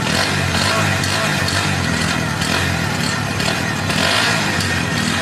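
Bajaj Pulsar NS125's single-cylinder engine running steadily at idle, heard at its exhaust.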